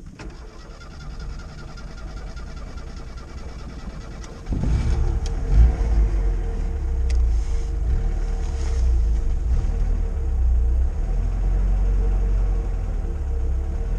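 Classic VAZ Zhiguli car engine starting about four and a half seconds in, giving one short rev and then idling steadily.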